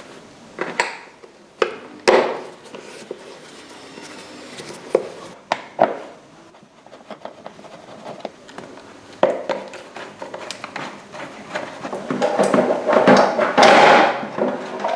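Metal parts and tools being handled and set down on a workbench during a motorcycle rear-end strip-down: a series of separate knocks and clicks, then a longer run of clattering and rattling about twelve seconds in.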